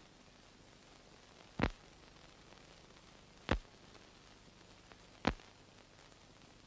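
Steady hiss of an old film soundtrack with no other sound on it, broken by three sharp clicks about two seconds apart.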